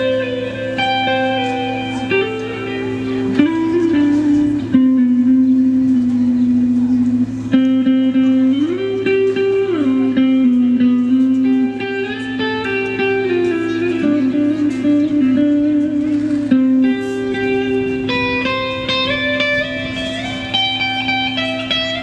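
Music: a slow electric guitar melody over a steady low drone, the guitar holding notes and sliding between them.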